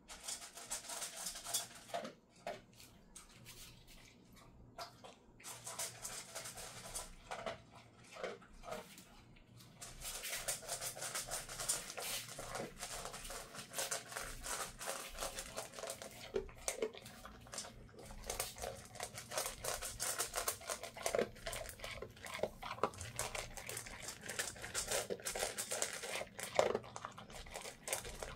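Dog crunching dry kibble from a metal bowl: quick, irregular crunches and clicks, scattered with pauses for the first ten seconds or so, then steady.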